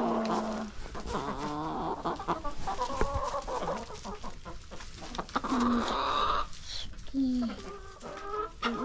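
Laying hens clucking and calling, a run of short clucks and drawn-out calls that slide down in pitch, over scattered clicks and rustles.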